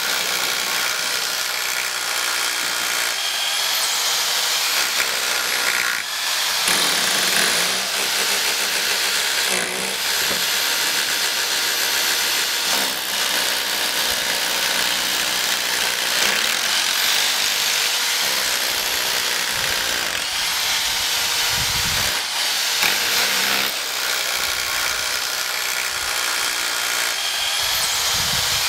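Electric drills boring into concrete with masonry bits, running almost without a break.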